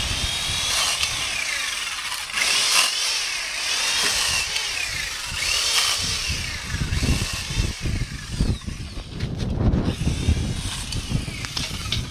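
Black & Decker Alligator corded electric lopper, a small 4.5-amp chainsaw, running and cutting through limbs. Its motor whine dips in pitch and recovers with each cut. Knocks and rustling of branches in the last few seconds.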